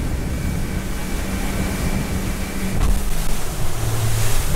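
Fishing boat running at speed: the steady drone of its outboard motor under the rush of water from the wake, with wind buffeting the microphone. It grows a little louder about three seconds in.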